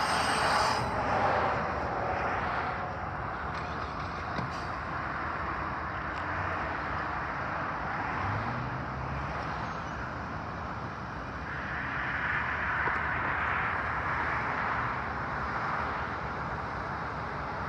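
Freight train of autorack cars rolling along the rails, a steady rumble and rush of steel wheels on track, with a faint high wheel squeal near the start.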